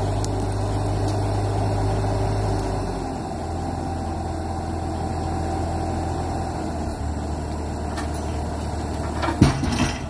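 Diesel engine of a tracked Bobcat skid steer idling steadily, its low hum shifting slightly about 3 and 7 seconds in. A single knock about nine seconds in.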